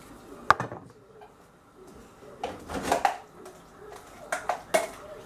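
Kitchen handling clatter: a sharp knock about half a second in, more knocks and rattles around the middle, and two quick knocks near the end.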